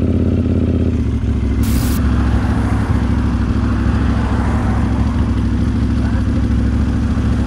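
Motorcycle engine running steadily, picked up by a camera mounted on the bike. A short burst of hiss cuts across it about one and a half seconds in.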